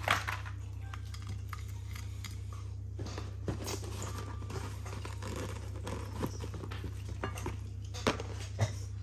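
Scattered light clicks, knocks and clinks of food and utensils being handled at a meal, over a steady low hum.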